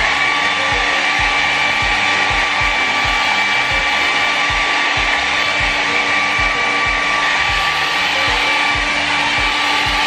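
Kris 600-watt travel hair dryer running steadily, a constant rush of blown air with a steady high whine, cutting in sharply at the start.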